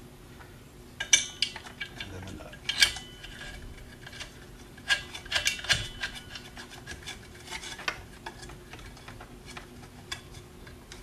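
Small metal parts clicking, clinking and rubbing as they are handled in a sheet-metal housing, while a washer and nut are fitted and threaded finger-tight onto the end of a UV lamp. The clicks are scattered and irregular, with a busier run of them about five to six seconds in.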